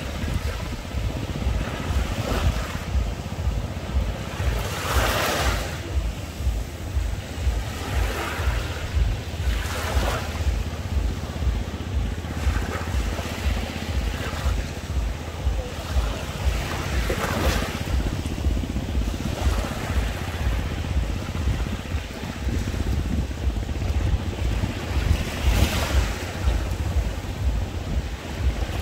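Small sea waves breaking and washing up the beach every few seconds, over a steady low rumble of wind on the microphone.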